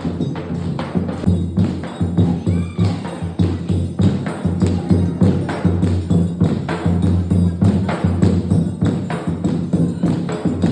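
Music with a heavy, steady bass line and fast, busy percussion.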